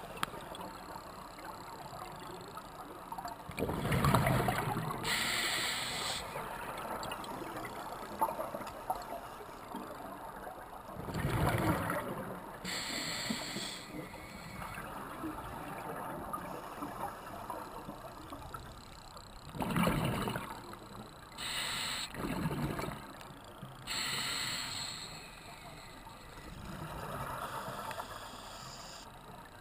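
Scuba regulator breathing, heard underwater through a GoPro dive housing. There are three breaths, about eight seconds apart: each is a rumbling burst of exhaled bubbles, followed by the hiss of the regulator on the next inhale.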